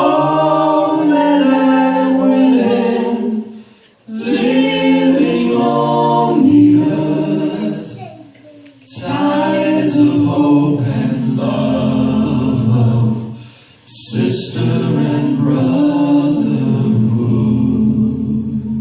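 Choir singing a cappella in sustained chords, in four phrases with short breaks between, the last chord cut off at the end.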